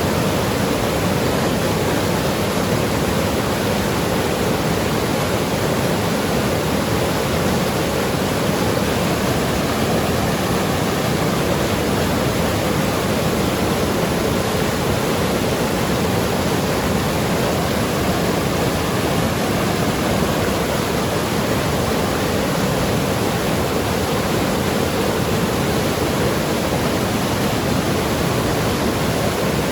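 Mountain river rushing and gurgling over rocks, a steady, unbroken rush of water.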